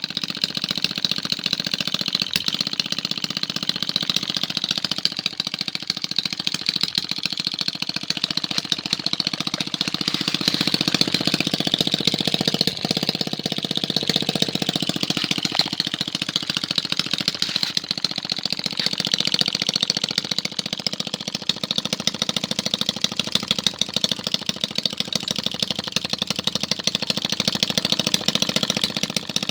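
Small homemade two-stroke engine, built from a refrigerator compressor, running steadily as a rapid, even stream of sharp firing beats.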